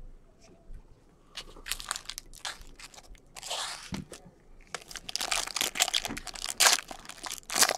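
Clear plastic card sleeves and packaging crinkling and rustling as gloved hands handle trading cards: a run of short crackles that grows denser over the second half.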